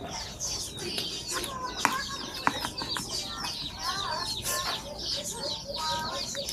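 Chickens clucking, with many short repeated calls, and a few sharp clicks mixed in.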